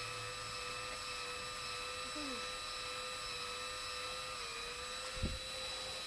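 Cordless drill running steadily in low range, turning the shaft of a flow-frame honey pump: a steady motor whine that sags slightly in pitch near the end. A single low knock about five seconds in.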